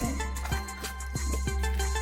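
Background music with a steady bass and a soft beat about twice a second.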